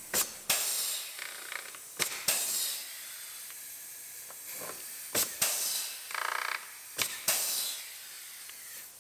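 Pneumatic rivet gun setting rivets in a plastic license plate bracket: four times, a sharp snap followed by a short hiss of air.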